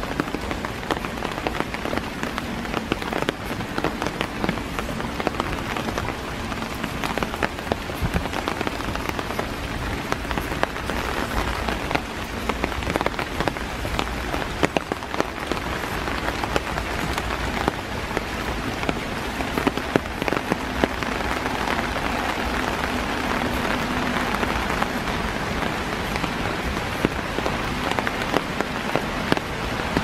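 Steady rain falling through forest trees onto a wet walkway: a dense patter of drops with occasional louder single drips.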